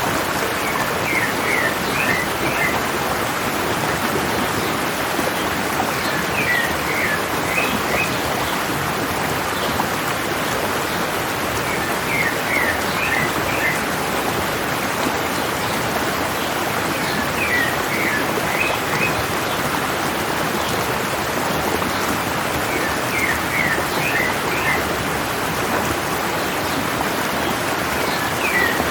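Mountain stream running steadily, with a bird singing the same short phrase of quick chirping notes about every five and a half seconds.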